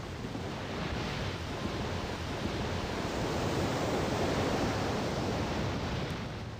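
Rushing water of a large wave surging ashore, a dense wash of surf noise that builds to its loudest around four seconds in.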